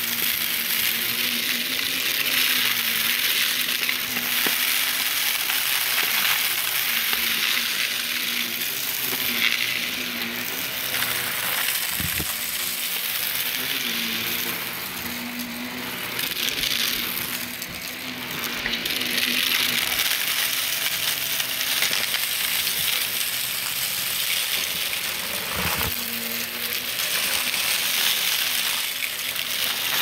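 Shark vacuum cleaner running over carpet, its brushroll sucking up scattered glitter, sequins, beads and hair with a crunchy, crackling rattle over the motor's steady hiss and hum. The level swells and dips as the head is pushed back and forth, with a sharper knock twice as something hard is picked up.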